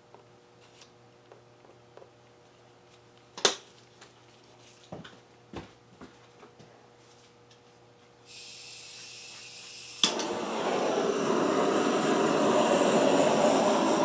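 A few small taps and knocks, then a handheld butane torch: gas starts hissing about eight seconds in, it clicks alight about two seconds later, and its flame then burns with a loud, steady rushing noise.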